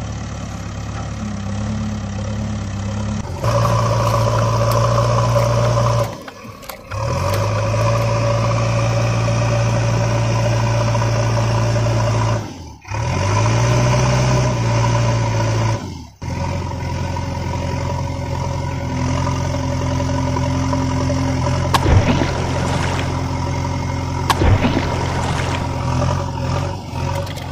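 A vehicle engine running at a steady pitch, stepping up in level a few seconds in and cutting out briefly three times. A few sharp clicks come in the last few seconds.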